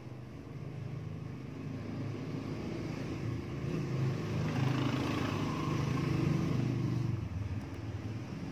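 Low engine rumble of a passing motor vehicle, growing louder to a peak about halfway through and then fading.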